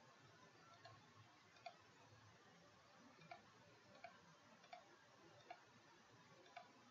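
Faint computer mouse clicks, about seven at irregular intervals, over a low steady hiss.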